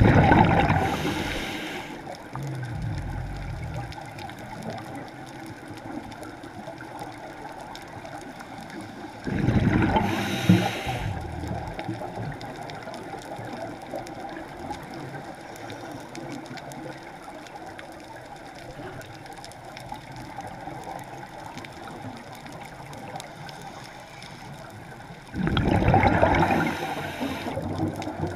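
Scuba diver breathing underwater, heard through the camera housing: three long rushes of bubbles as the diver exhales through the regulator, each about two seconds, with a faint steady hiss between them.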